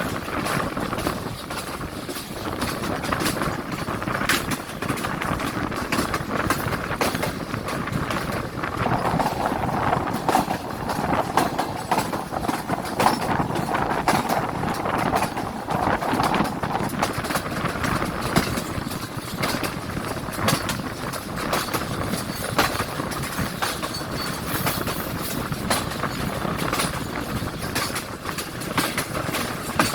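Awam Express passenger train running, a continuous rumble and rattle with many irregular clicks and clanks from wheels and carriages.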